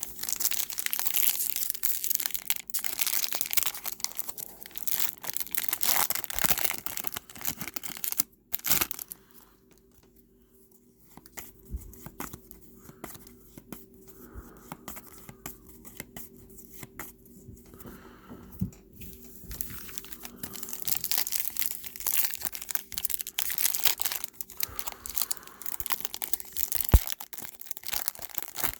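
Foil trading card pack wrappers being torn open and crinkled, with cards handled between. The loud crackling stops briefly around ten seconds in, goes on softer for a while, then gets louder again in the last third. A faint steady hum runs underneath.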